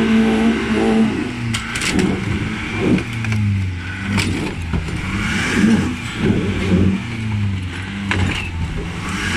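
Nissan Patrol 4x4's engine revving up and down again and again under load as the truck climbs its front wheel onto an Opel Astra's front end. A few sharp knocks break in along the way.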